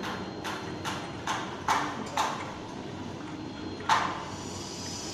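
Motor-driven sliding gate, run by a CAME BK1800 operator, travelling along its track with even knocks about twice a second. One louder knock comes about four seconds in.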